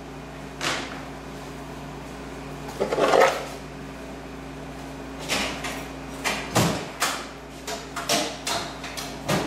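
Short knocks and clatters of tools being handled and set down. There is one knock just under a second in and another about three seconds in, then a quicker run of them in the second half, over a steady low hum.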